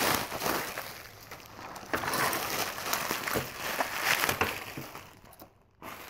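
Plastic bubble wrap crinkling and crackling as it is pulled off by hand, dying down near the end.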